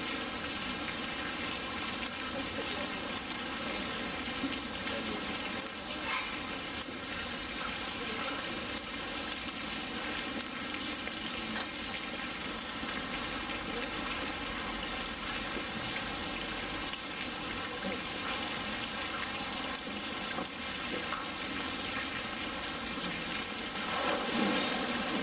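Steady rush of running water in a polar bear's pool enclosure, with a brief louder swell near the end.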